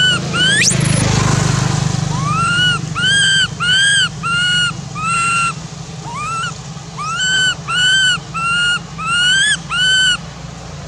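Infant macaque crying: a run of about a dozen high, arching whimpering calls, roughly two a second, with a few rising squeals. A steady low hum runs underneath.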